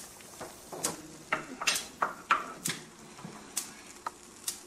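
Metal tongs clanking against stainless steel pots at the stove: about nine sharp, irregular knocks, some ringing briefly.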